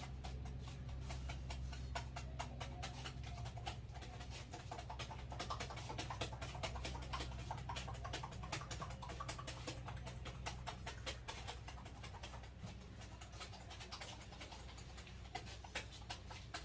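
Rapid, irregular taps and crackles of a barber's hands working over a customer's head and hair during a head massage, over a steady low hum.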